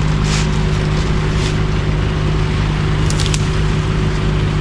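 An engine running steadily at idle, a constant low hum, with a few brief faint high clicks over it.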